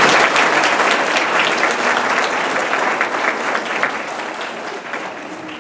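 Audience applauding, loudest at the start and slowly fading away.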